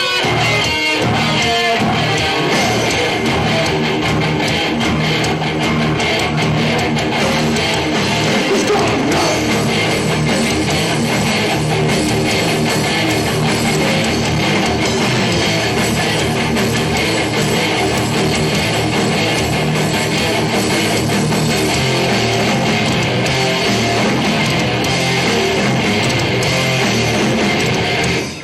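Heavy metal band playing live: distorted electric guitar riffing over bass and drums, without vocals. The sound drops out briefly near the end.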